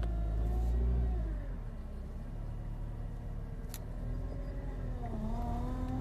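Subaru Impreza WRX STI GRB running cold, with its power steering pump making an abnormal whining noise over the engine. The pitch falls about a second and a half in and climbs again near the end as the speed changes. A cold-only power steering pump noise is a known weak point of this car, and a sign that the pump needs replacing.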